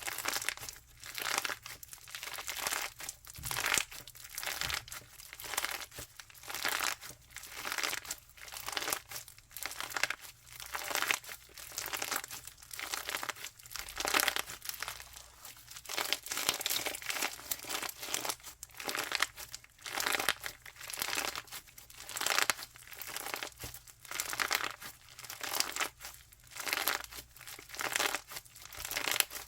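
Crunchy slime being squeezed and pressed by hand, crackling and crunching like chewed ice in a steady rhythm of about one squeeze a second.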